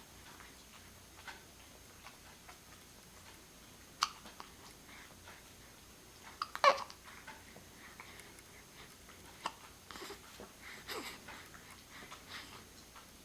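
A pet animal's scattered soft vocal sounds and sharp clicks, with one louder pitched call about halfway through and a run of short calls near the end.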